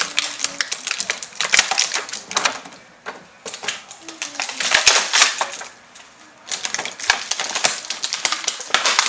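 Plastic packaging crinkling and crackling as it is handled and pulled open in bursts, with short lulls about three and six seconds in.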